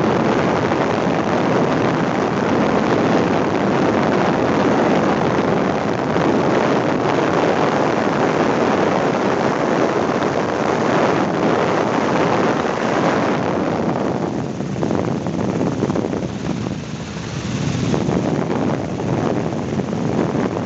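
Helicopter in flight, heard from on board: a loud, steady rush of rotor, engine and wind noise on the microphone, easing for a few seconds past the middle before coming back up.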